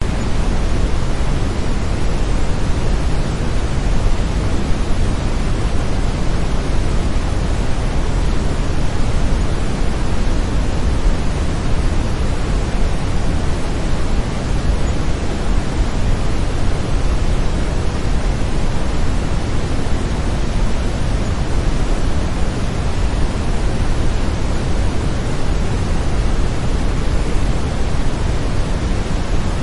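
Brownian (brown) noise, a steady, even noise with no pitch, heaviest in the bass and thinning toward the treble.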